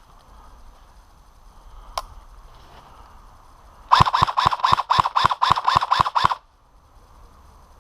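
A single sharp click about two seconds in, then an airsoft gun firing a rapid string of about ten shots at roughly four a second, stopping after about two and a half seconds.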